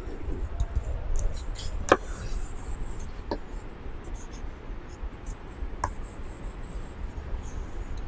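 Low steady room rumble with three sharp clicks, the first and loudest about two seconds in, as a whiteboard marker is handled.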